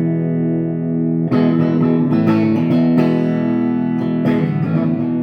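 Stratocaster electric guitar with three single-coil pickups played on the bridge pickup alone, in normal 5-way switching: a held chord rings on, then a fresh chord is struck about a second in, followed by picked notes and another strum near the end.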